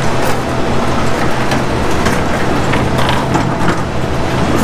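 Diesel locomotive engine idling with a steady low hum, with scattered light clicks.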